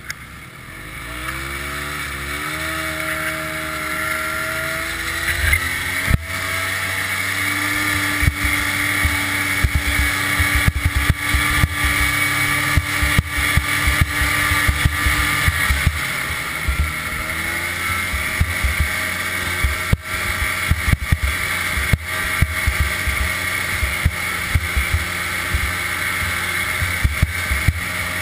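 1988 Ski-Doo Safari Citation 250 snowmobile's two-stroke engine, rising in pitch as it picks up speed in the first few seconds, then running steadily under way. Frequent short knocks and thumps come as the sled jolts along the rutted snow trail.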